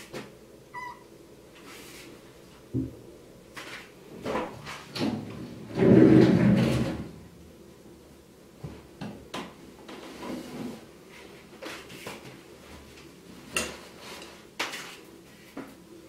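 A young kitten moving about in a dry ceramic bathroom sink: scattered light knocks and scrapes against the basin. A louder sound lasting about a second comes about six seconds in.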